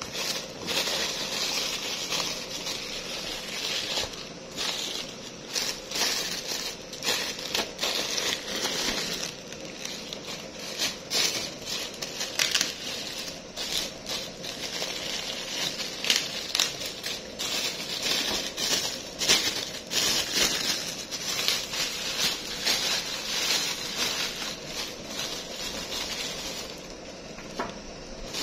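Bubble wrap and a thin plastic bag crinkling and rustling as they are handled and pulled open, with many sharp irregular crackles.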